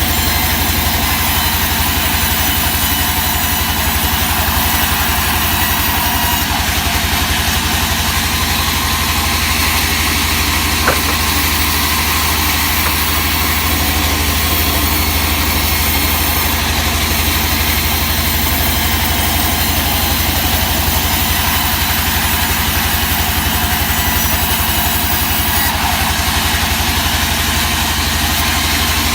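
Sawmill machinery running steadily, a constant mechanical drone with a strong low hum, and one short click about eleven seconds in.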